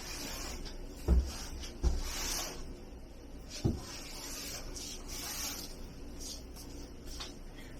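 Equipment being handled on a workbench: three sharp knocks, about one, two and nearly four seconds in, with short rubbing and scraping sounds in between.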